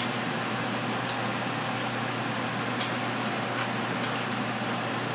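Steady hum and hiss of background noise, like a fan or ventilation running, with a few faint light ticks. No gunshot.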